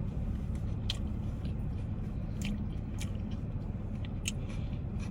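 A person chewing a mouthful of Italian grinder sandwich, with short wet mouth clicks about every second, over a steady low hum.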